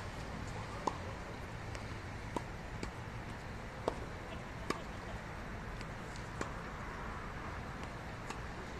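Tennis ball struck by rackets and bouncing on a hard court during a rally: a series of sharp pops, roughly one every second or so, over a steady low background hum.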